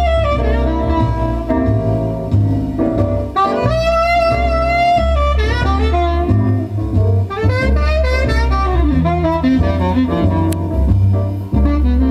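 Jazz LP playing on a turntable: alto saxophone holding long notes with vibrato, then running through quicker phrases, over a walking double bass. A single sharp click sounds about ten seconds in.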